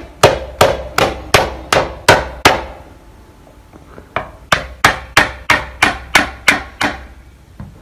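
A small hammer tapping the end of a manual hammer impact driver, fitted with a 10 mm socket on a tight motorcycle handlebar clamp bolt, to shock the stuck bolt loose. Sharp metal-on-metal taps with a short ring, about three a second: a run of seven, a pause of about a second and a half, then nine more.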